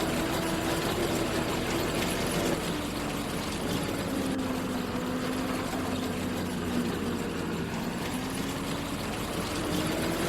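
Farm machinery engine running steadily during a wheat harvest; its pitch drops about two and a half seconds in and climbs back near the end.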